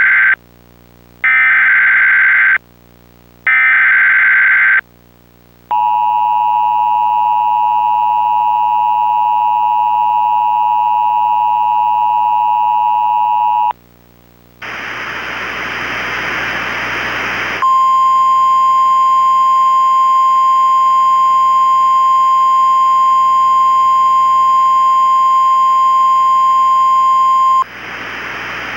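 Emergency Alert System header: the end of one warbling SAME data burst, then two more bursts about a second long with short gaps between. Next comes the two-tone EAS attention signal (853 and 960 Hz), held steady for about eight seconds. After a few seconds of hiss, a single steady NOAA Weather Radio 1050 Hz warning tone plays for about ten seconds and gives way to hiss near the end.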